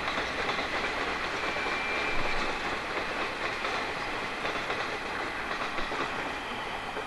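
Freight wagons of an EF81-hauled freight train rolling past, their wheels clattering steadily over the rail joints. A brief high whine comes about two seconds in.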